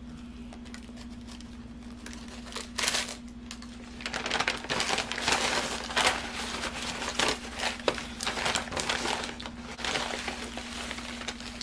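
Brown paper takeout bag crinkling and rustling as a hand rummages inside it. The crinkling is thick from about four seconds in and eases off near the end.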